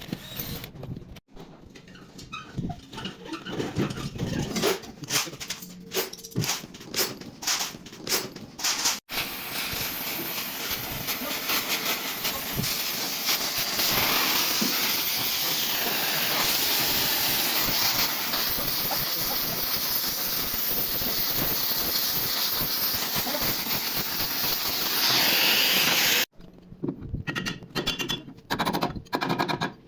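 Several seconds of scattered metal clicks and knocks from tyre work. Then a loud, steady hiss of air at the concrete mixer's tyre runs for about seventeen seconds and cuts off suddenly. More clicks and taps follow.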